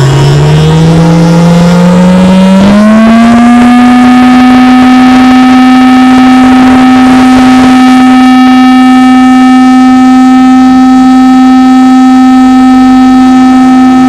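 Homemade air-raid siren, a small 5 V DC motor spinning a deodorant-cap rotor, wailing loudly. Its pitch climbs over the first three seconds as the motor speeds up, then holds one steady tone.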